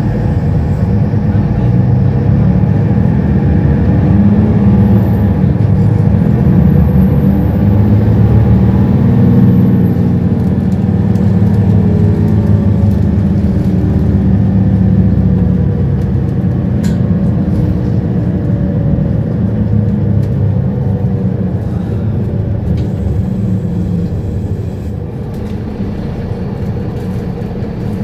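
Mercedes-Benz Citaro O530 bus's diesel engine heard from inside the cabin, revving hard as the bus accelerates with its gear held, the pitch rising over the first ten seconds or so. It then eases off and grows quieter over the last few seconds.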